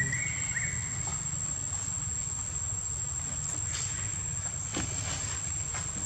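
Steady, high-pitched drone of insects in the forest, one unbroken tone, over a constant low rumble, with a few faint ticks about four and five seconds in.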